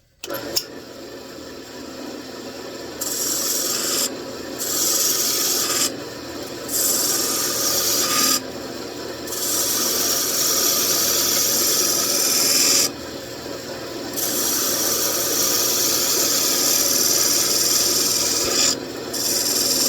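Wood lathe running with a steady hum while a skew chisel cuts the spinning wood: a dry, hissing shaving sound in about six passes of one to four seconds each, with short breaks between.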